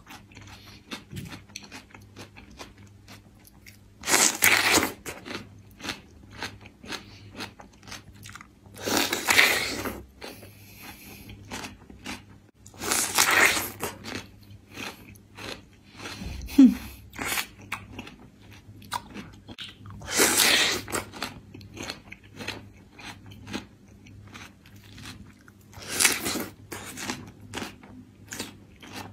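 Pieces of thin-skinned green melon being bitten and chewed. Five loud crunching bites come a few seconds apart, with smaller chewing sounds in between.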